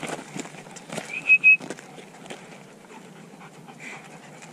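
Shepherd dog panting, with a short high-pitched squeak about a second in.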